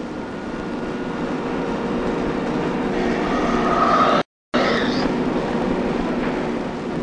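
Two-spindle metal-cutting machining centre running: a steady mechanical hum and whine with a few held tones, growing louder over the first four seconds. The sound cuts out completely for a moment about four seconds in, then carries on.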